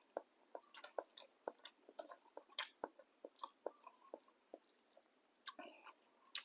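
Faint close-up eating sounds: a person chewing a mouthful of boat noodles, with irregular wet smacks and clicks about two or three a second.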